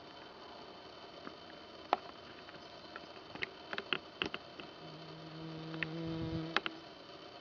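A flying insect buzzes close by for about two seconds near the end, a steady even-pitched drone that cuts off suddenly. Scattered light clicks come before it, amid faint outdoor hiss.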